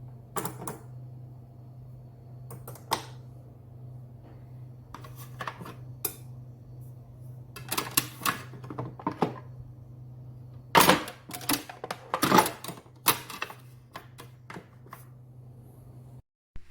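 Hard objects clicking and clattering as they are handled, with a cluster of sharp knocks loudest about eleven and twelve seconds in, over a steady low hum. All of it cuts off abruptly near the end.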